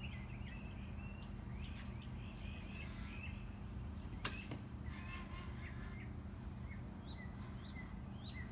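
Small birds chirping repeatedly over a steady low outdoor background, with a single sharp click about four seconds in.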